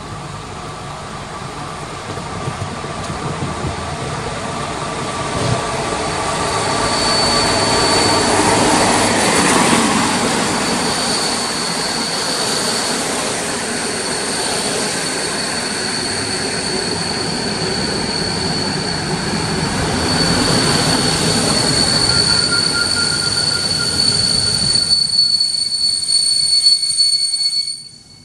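PKP Class EP07 electric locomotive and its passenger coaches passing along the platform track. The rumble builds as the train comes close, with a steady high-pitched squeal of wheels on the rails while the coaches go by. Near the end the low rumble drops away suddenly.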